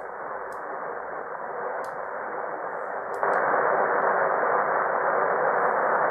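Static hiss from an Icom IC-R71E shortwave receiver, fed through a bhi NEIM1031 DSP noise-cancelling unit. It is cut off above the speech range and no signal comes through. A few small clicks come as the unit's buttons are pressed, and about three seconds in, right after a click, the hiss jumps markedly louder.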